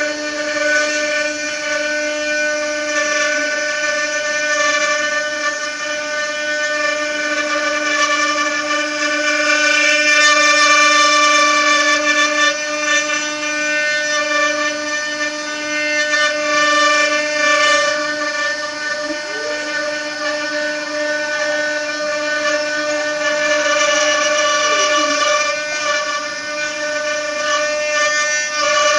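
4-axis CNC wood router carving a wooden furniture leg: the spindle whines steadily at a high pitch while a small carving bit cuts the wood, with a hissing cutting noise that swells and fades. About two thirds of the way in, a few tones slide up and down.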